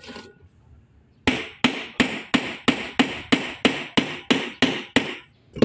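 Hammer striking the metal top cover of a Fuso 6M70 truck air dryer: a steady run of about a dozen sharp blows, about three a second, starting a little over a second in.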